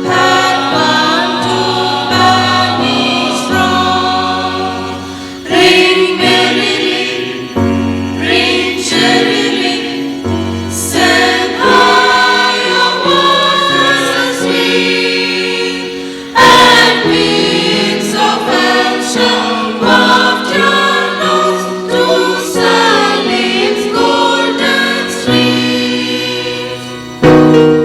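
Church choir singing a Christmas song in chords, the volume jumping up suddenly three times, about every eleven seconds.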